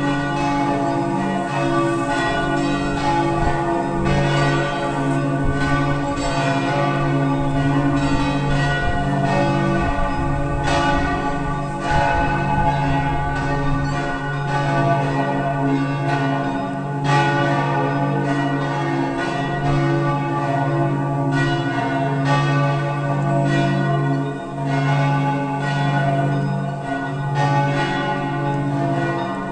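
Several church bells ringing together in a continuous peal. Frequent, overlapping strikes sit over a sustained low hum.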